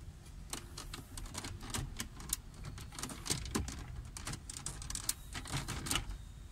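The brittle plastic center dash panel of a Mitsubishi Lancer GLi being pulled loose by hand: a string of irregular light clicks and ticks from the plastic and its clips.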